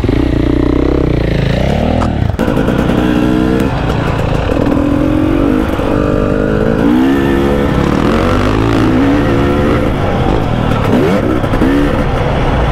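KTM 300 two-stroke dirt bike engine under hard use, its pitch climbing and dropping again and again as it revs up and backs off. There is a single sharp knock about two and a half seconds in.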